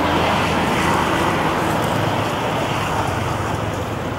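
Steady road traffic noise, swelling over the first few seconds as a vehicle passes and then easing off.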